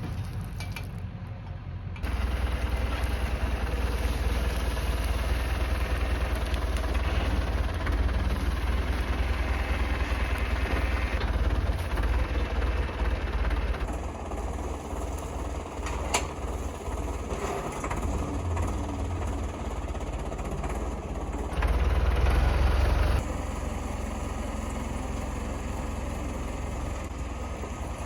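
A motor vehicle engine running steadily with a deep drone, getting louder about two seconds in, easing back about halfway through, and briefly louder again later on. A single sharp click sounds just past the middle.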